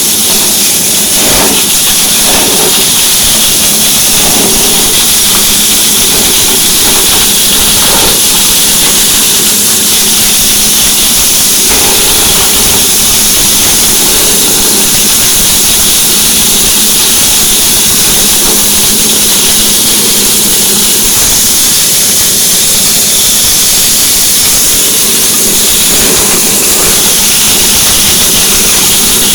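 Grass chopper driven by a Honda 5.5 hp single-cylinder petrol engine, running steadily at speed, with a strong whirring hiss from the spinning cutter and a few faint brief noises as material goes through.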